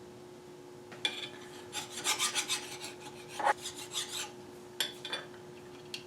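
A run of short, irregular scraping and rubbing strokes on metal, starting about a second in and lasting about four seconds, with a couple more near the end. A steady faint hum runs underneath.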